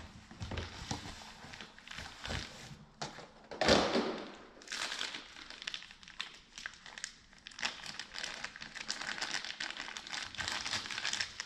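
Plastic packaging crinkling and rustling as a new camshaft is worked out of its clear plastic sleeve, with a louder rustle about four seconds in.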